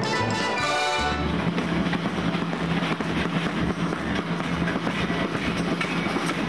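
A short music jingle ends about a second in. It gives way to a continuous clatter of metal saucepans and pan lids being banged together by a group of people, with a maraca shaking among them.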